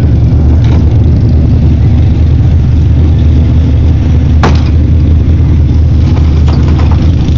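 An engine idling steadily in a loud, even low hum, with one sharp knock about four and a half seconds in.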